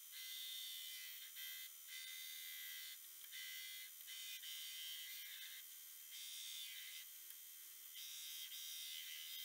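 Belt grinder with a coarse 36-grit belt grinding the profile of a Damascus steel blade. The grinding noise swells and eases unevenly as the blade is pressed to and eased off the belt.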